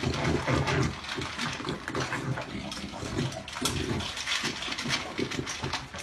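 Puppy eating dry kibble from a metal bowl: rapid, uneven crunching and chomping.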